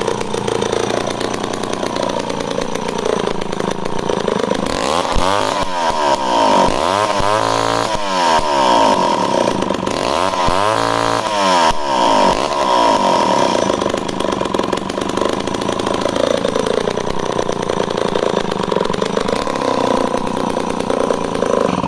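Homelite C-51 chainsaw's 77 cc two-stroke engine running loud through its stubby side exhaust, revved up and back down several times in the middle, then cut off at the end. The saw is a fresh, unworn engine with good compression.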